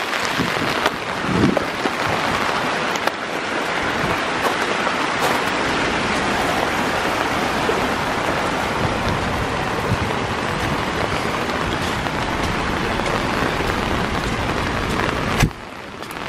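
Steady hiss of rain falling close by. It stops suddenly about a second before the end, leaving a quieter hiss.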